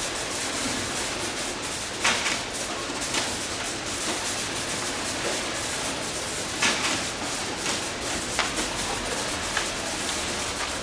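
Two-ram baler running while it bales HDPE milk jugs: steady machine noise with sharp cracks about 2, 3 and 7 seconds in and twice more near the end.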